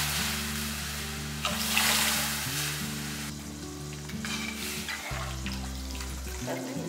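Rasam sizzling in a pot of hot tempering oil as a steel ladle stirs it, the hiss fading over the first few seconds. Steady background music with long held low notes runs underneath.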